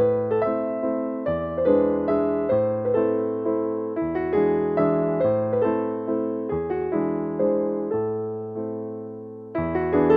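Background instrumental music: a keyboard melody of struck notes that fade, over low bass notes that change about every two to three seconds.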